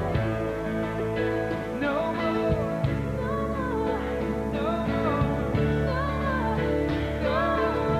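Country-style song with guitar and a singing voice.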